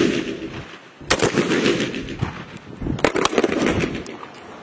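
Small-arms gunshots during live-fire training: a single shot about a second in, then a quick cluster of shots near three seconds. Each shot is trailed by a short echo.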